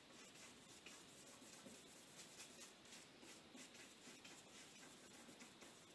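Faint scratching of a paintbrush working oil paint over paper, many short quick strokes.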